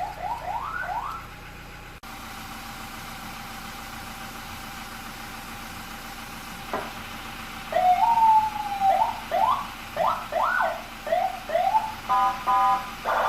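Senken CJB100BD electronic vehicle siren being tried out through its tones. A few quick upward sweeps open the clip; after a quieter lull and a click comes a tone that rises then slowly falls, a run of rising whoops, and near the end a short steady horn-like blast.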